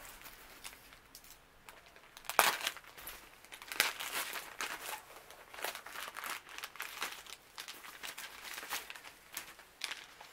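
A thin clear plastic bag crinkling and rustling as hands pull a stack of sheet-mask packets out of it. It is a run of irregular crackles, loudest a little over two seconds in and again near four seconds.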